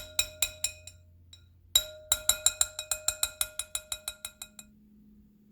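A utensil tapped quickly against the rim of a glass bowl, each tap ringing at the same pitch. There are two runs of taps at about five a second, a short one and then a longer one that fades out.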